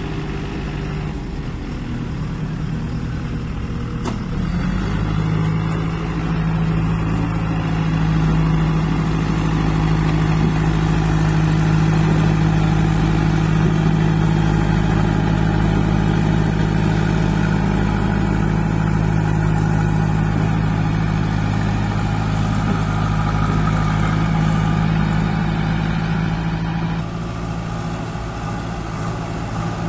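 Kirloskar diesel engine of a JCB 2DX backhoe loader running steadily. It speeds up about five seconds in, holds the higher speed, and drops back near the end.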